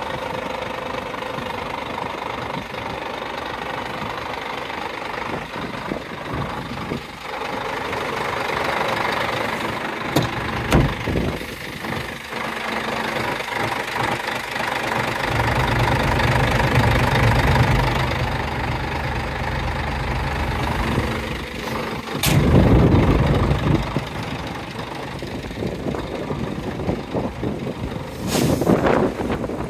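Scania R114-380's 11-litre straight-six diesel idling steadily, with a few short knocks and some louder low rumbles around the middle and about two-thirds through.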